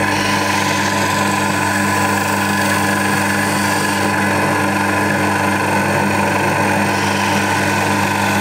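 Small benchtop lathe running with a steady, even hum from its motor and spindle, turning an engine valve in its chuck while a screwdriver scrapes the carbon deposits off it.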